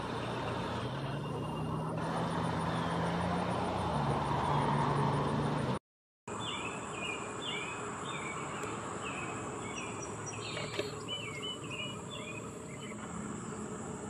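For the first six seconds, a steady low engine drone of road traffic. After a short cut to silence, a small bird gives about a dozen short chirps over a steady high insect buzz, the chirps fading out a little past the middle.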